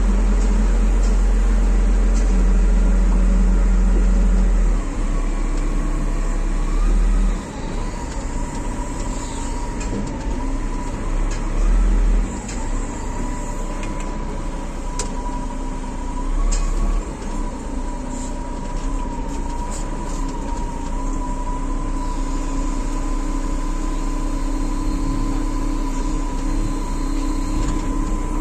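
Diesel engine of heavy machinery running steadily, with a wavering whine over a low rumble; the rumble eases about five seconds in.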